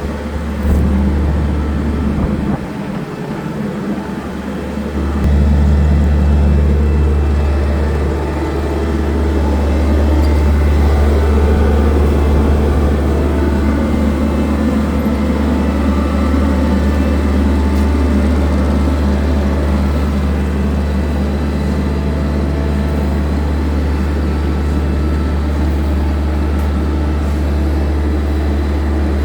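CAT AP300 asphalt paver's CAT C3.3B diesel engine running steadily at work, a low even hum that drops back for a couple of seconds about three seconds in and then returns to full.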